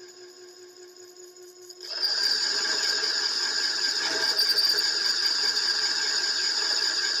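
Small homemade CNC lathe turning a metal workpiece: a steady low hum at first, then about two seconds in the tool bites and the cut gets much louder, a steady high-pitched whine over rough cutting noise.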